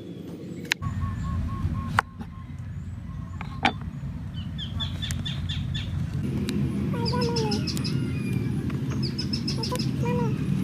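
Small birds chirping in quick repeated runs over a steady low rumble, with a few sharp clicks in the first seconds.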